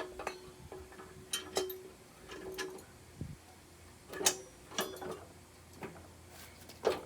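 Irregular metallic clicks and clinks, some with a short ring, as small metal parts of the mini bike's wheel assembly are handled and knocked together.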